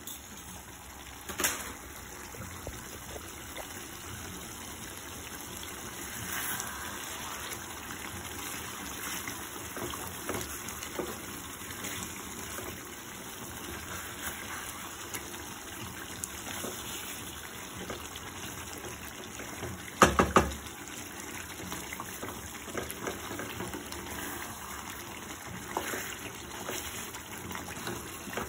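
Water running steadily, with scattered clinks and a quick cluster of loud knocks about twenty seconds in.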